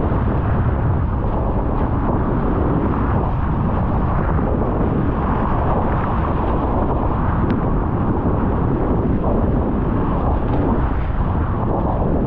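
Steady, heavy wind rumble on the microphone mixed with rushing water, as a Nacra 20 racing catamaran sails fast in strong wind.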